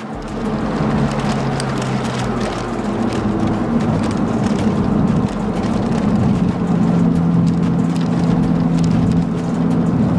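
Car driving at steady speed, heard from inside the cabin: the VW Scirocco R's stage 1 remapped turbocharged four-cylinder engine running under light load over road and tyre noise, its note growing a little stronger about seven seconds in.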